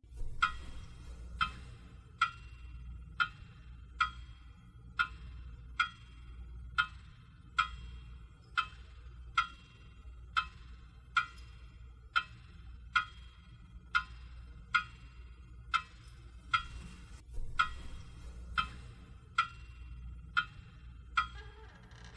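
Clock ticking steadily, about one tick a second, over a low steady hum.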